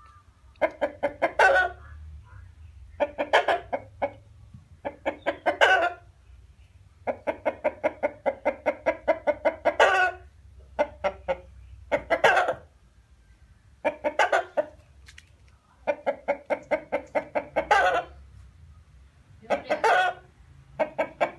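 Chicken clucking: about nine bouts of rapid clucks strung together, each lasting from half a second to a few seconds, with short pauses between them.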